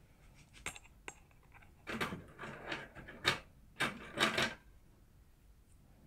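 Steel lock-picking tools clicking and scraping against a clear acrylic practice padlock. Two sharp clicks come first, then a rattling run of clicks and scrapes lasting a couple of seconds.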